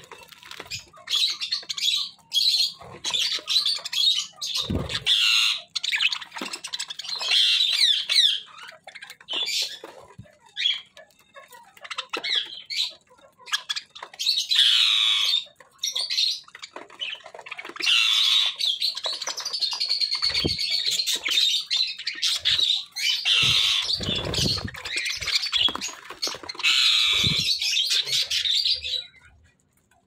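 A flock of budgerigars chattering and warbling: many overlapping chirps, squawks and twittering calls, busiest in the second half, with a few low thumps among them. It stops shortly before the end.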